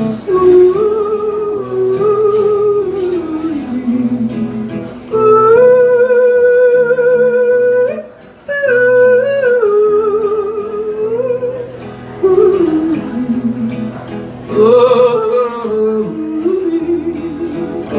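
A man yodeling a wordless refrain over acoustic guitar in a live country song, holding long notes and sliding and leaping between them.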